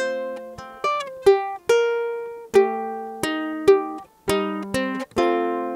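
Flight Voyager tenor ukulele played solo, picking the interlude melody: a run of single plucked notes and small chords, each ringing and fading before the next.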